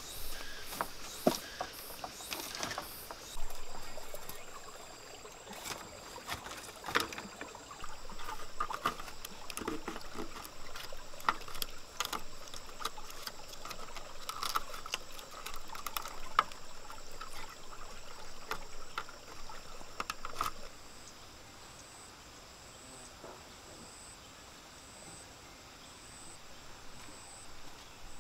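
Bamboo poles and wire being handled and tied into a bamboo fence: scattered knocks, clacks and rattles. About twenty seconds in the work stops, leaving a quieter outdoor background with a steady high-pitched drone that pulses gently.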